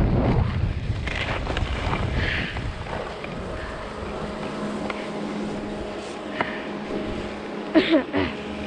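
Wind buffeting the camera microphone, dying away in the first second or so, then a faint steady hum. Two or three short, loud sounds with bending pitch come near the end.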